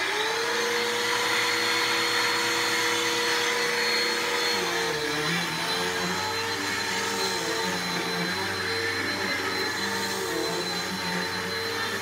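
Bissell PowerForce Helix upright vacuum cleaner running, its motor spinning up to speed at the start and then holding a steady whine with a thin high tone. From about four and a half seconds in, the lower pitch wavers as the vacuum is pushed back and forth over the rug.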